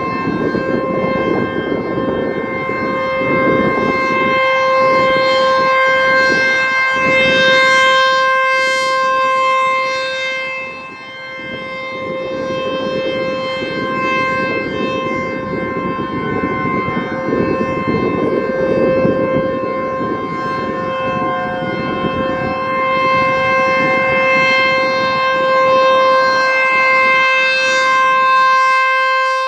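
American Signal T-128 rotating outdoor warning siren sounding a steady tone at full speed for its monthly test. The pitch holds level while the loudness swells and fades as the horn sweeps around, weakest about eleven seconds in.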